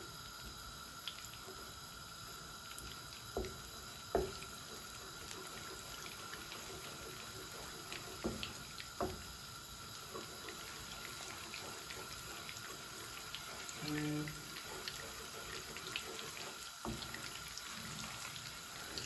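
Butter melting and sizzling in a frying pan over medium heat, a steady hiss with faint crackles as it foams. A wooden spatula stirs it, knocking against the pan a few times.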